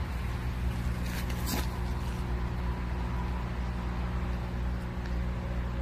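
A steady low mechanical hum, with a short hiss about one and a half seconds in.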